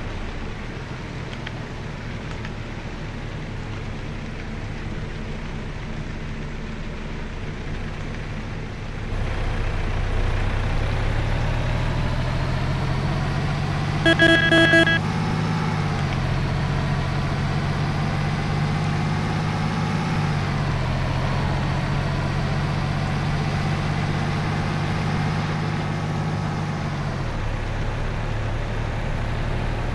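Truck engine running on the road, heard from inside the cab; it grows louder about nine seconds in and its note drops a couple of times later on. A short pulsed beep sounds once about halfway through.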